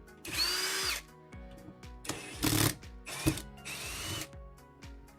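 Power drill-driver backing out door strike plate screws in three short runs, its motor whine rising and falling in pitch with each run.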